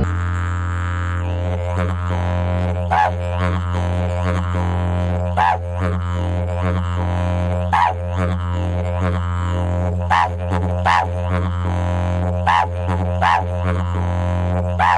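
Background music: a didgeridoo playing a steady low drone, with sharp, bright overtone calls accenting it every second or two.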